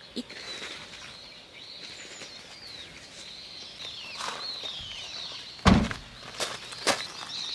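Small birds chirping and twittering throughout. About three-quarters of the way through, a Kia Seltos SUV's tailgate is shut with one heavy thump, followed by two sharper knocks.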